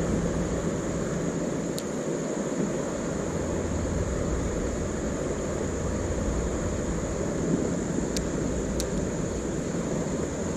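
Steady low rumbling outdoor noise with a thin steady high hiss over it, broken by a few faint ticks.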